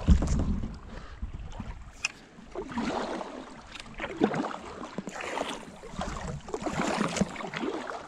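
Kayak paddle strokes: the blades dip and swish through shallow water about every second and a half, with a brief low thump at the start.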